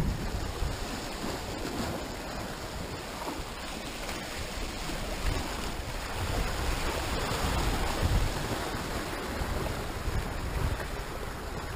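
Sea surf washing against rocks, with wind buffeting the microphone in low gusts that swell and fade.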